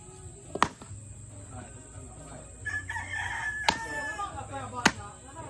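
Machete chopping through fish on a wooden chopping block: three sharp chops, about half a second in, near 3.7 seconds and near the end. A rooster crows for about two seconds in the middle, between the chops.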